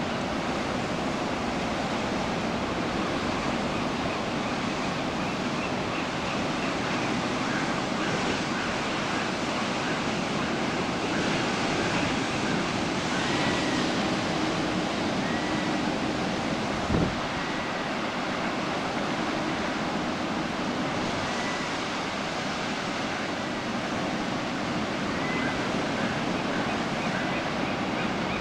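Ocean surf crashing on large coastal rocks: a steady wash of breaking waves. Faint seagull calls come through now and then, and there is one brief knock about two-thirds of the way through.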